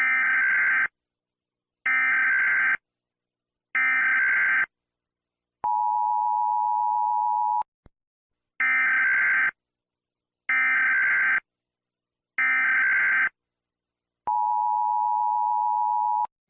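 Emergency Alert System header: three short screeching digital data bursts, a steady attention tone of about two seconds, then three more bursts and a second two-second attention tone.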